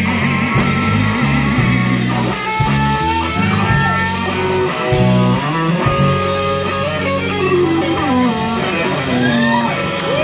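Live blues band: electric guitar lead with bent, sliding notes over bass guitar and drums.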